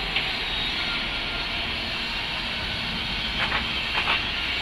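City bus driving around a roundabout, its engine running steadily amid street traffic, with a few short sharp high sounds near the end.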